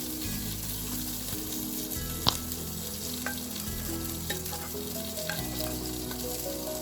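Tandoori-marinated chicken legs shallow-frying in oil in a pan, a steady sizzle, with a sharp clink of a utensil about two seconds in and a few lighter taps after.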